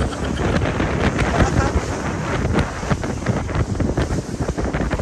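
Wind buffeting the microphone on a motorboat running fast across open sea, with water rushing past the hull. The sound is a loud, steady rush with constant irregular gusty thumps.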